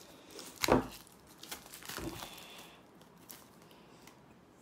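Game cards being handled at a table: a sharp knock about a second in, then a few light clicks and crinkling rustles that fade out.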